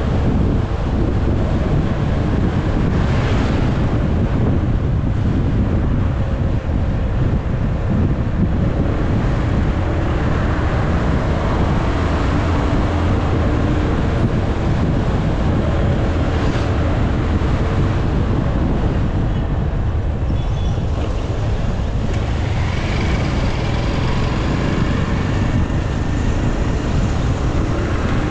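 Motorcycle riding noise: the engine runs at road speed under a steady rush of wind on the camera's microphone, with a constant low rumble.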